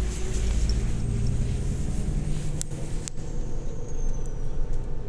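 Irisbus Crossway coach's engine and running noise heard from inside the passenger cabin, a steady low rumble whose note shifts about three seconds in, with two sharp clicks around the middle.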